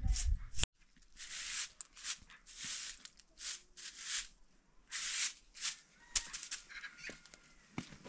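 Straw broom sweeping concrete steps in short, scratchy strokes, roughly two a second with a few pauses. A brief low rumble at the very start cuts off abruptly.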